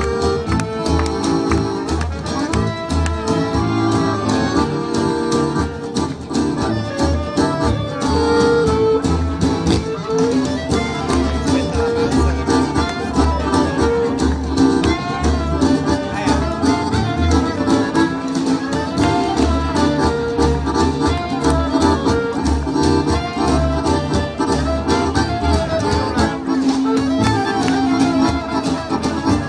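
Instrumental music with a steady, driving beat and a melody carried over it.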